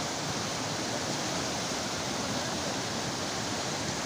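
Fast, muddy glacial meltwater stream rushing over rocks: a steady, loud wash of water noise.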